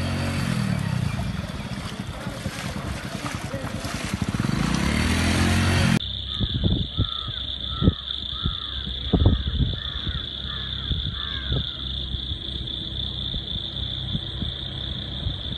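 Motorcycle engine revving up and down over a rushing wash of floodwater. After a sudden cut about six seconds in, a steady high-pitched insect drone takes over, with scattered knocks and short chirps.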